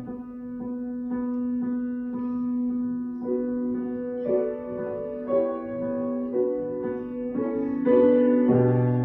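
Instrumental piano music: a held low chord with soft even pulses, a slow melody of higher notes coming in about three seconds in, and a deep bass note returning near the end.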